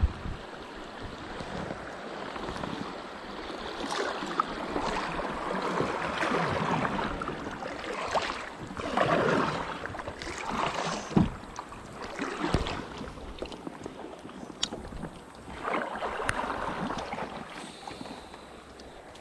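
Water rushing and splashing around a plastic sit-on-top kayak running a shallow riffle, swelling and easing with the paddle strokes, with a few sharp knocks against the hull about two-thirds of the way through.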